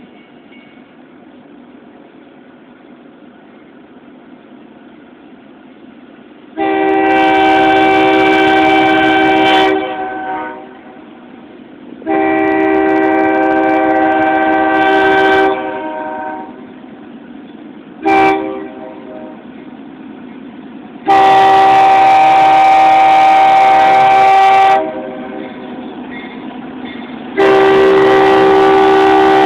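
Locomotive air horn sounding a chord in the grade-crossing pattern: two long blasts, a short one, then a long one, with another long blast starting near the end. A low steady rumble comes before the first blast and continues between the blasts.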